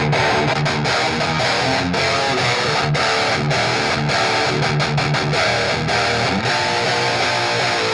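Distorted high-gain electric guitar riffs with palm-muted chugs and brief stops, played through a Line 6 Helix modeller into a 15-inch powered PA speaker and heard in the room.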